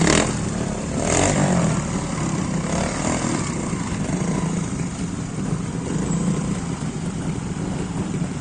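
Trials motorcycle engine running at low revs while the bike creeps down a rocky slope, with a short louder burst about a second in, then steady low running.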